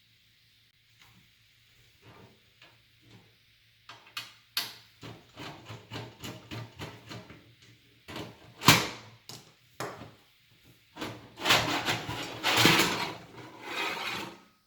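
Hard drive cage being worked loose and pulled out of a PC case: scattered small clicks and knocks, one sharp knock about nine seconds in, then scraping and rubbing near the end.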